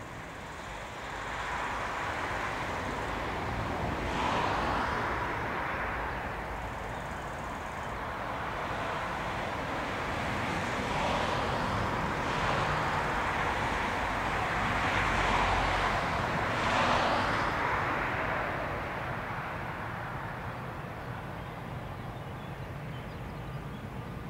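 Road traffic driving past, its tyre and engine noise swelling and fading several times.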